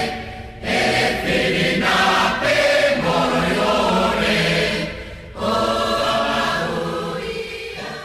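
A group of voices singing together in long sustained phrases, with two short breaks.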